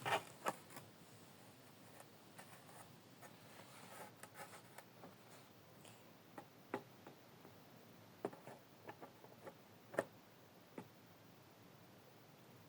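Scattered light clicks and taps of airplane model parts being handled and fitted together during assembly, the loudest near the start and about ten seconds in.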